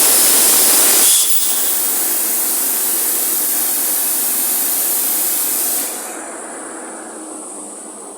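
CNC plasma torch cutting plate, a loud steady hiss. It steps down about a second in and falls to a fainter hiss with a thin high tone near six seconds, as the cut ends.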